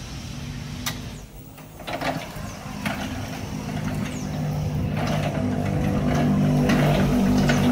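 Linde L14i electric pallet stacker being driven by its tiller: the electric drive gives a steady low hum that grows louder toward the end, with a few sharp clicks along the way.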